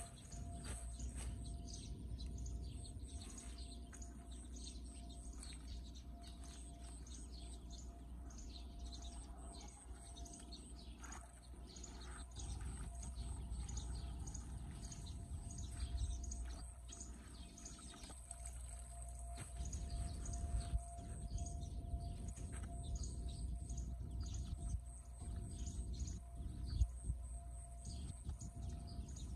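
Birds chirping on and off, with scattered splashes and sloshing in shallow floodwater as gloved hands pull debris from a clogged storm drain. There are a few louder splashes or knocks, and a steady low rumble underneath.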